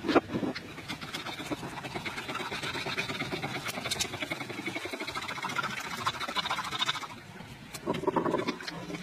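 A fork whisking a wet mixture in a wooden bowl: fast, even scraping clicks that dip for a moment about seven seconds in, then start again.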